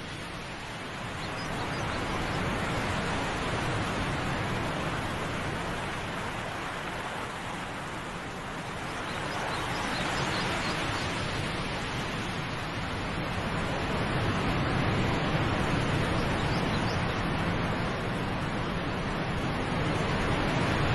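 Waterfall's rushing water: a steady, even roar that swells and eases slightly every few seconds.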